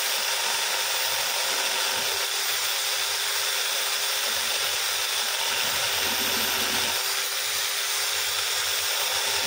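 Electric drill running steadily with an abrasive sanding drum in its chuck, grinding the lobe of a camshaft held against it by hand. The lobe's top is being shaved down bit by bit to correct the valve clearance.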